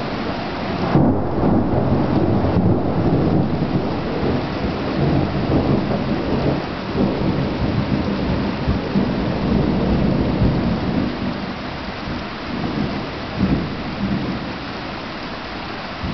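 Thunder rolling over steady rain: a deep rumble swells about a second in, rumbles on for roughly ten seconds and then eases, with one short jolt near the end.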